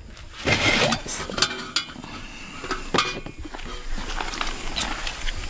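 A small portable gas stove being lifted out from among bags and bedding: a rustle about half a second in, then a few sharp metal clinks and knocks from the stove's frame and wire handle.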